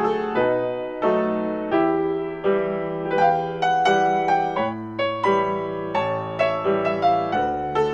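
Background piano music, a flowing melody of struck notes over sustained bass notes.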